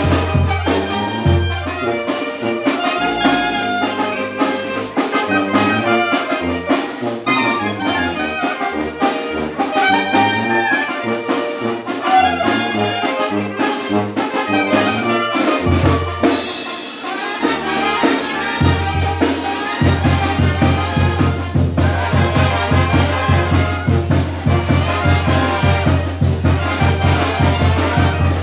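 Oaxacan wind band playing a chilena: trumpets, trombone, tuba, clarinet and drum kit with a steady dance beat. The low bass thins out through the middle and comes back strongly about two-thirds of the way in.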